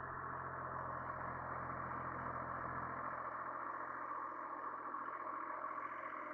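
International Harvester 385 diesel tractor running steadily while mowing tall weeds with a bush hog.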